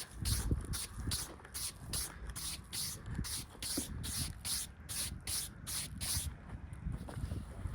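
A brush being swept over the surface of a freshly milled white oak slab in quick, even strokes, about three a second, with a short pause near the end.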